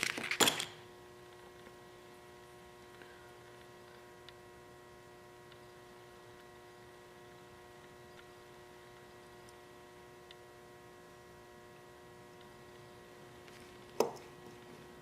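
A few sharp plastic clicks as the multi-tool is pulled out of its Kydex sheath, then a faint, steady electrical hum made of several fixed tones. A single click about 14 seconds in.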